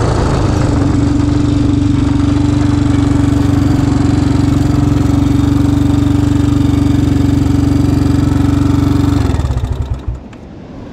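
Yamaha Raptor 350 ATV's single-cylinder four-stroke engine running at steady revs, holding one unchanged note. About nine seconds in the engine sound falls away sharply.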